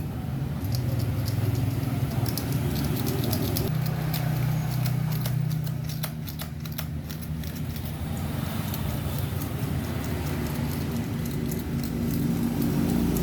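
An engine running at a steady low hum, with a run of light metallic clicks and taps in the middle.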